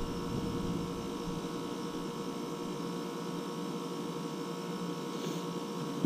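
ClimateMaster geothermal heat pump running in cooling mode: a steady hum with a faint constant tone and no change.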